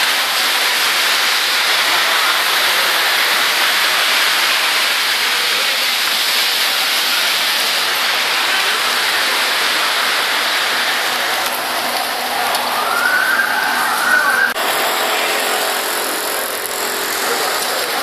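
Heavy rain and floodwater running along a flooded street, a loud steady hiss. A brief voice calls out about twelve seconds in, and the hiss drops abruptly soon after.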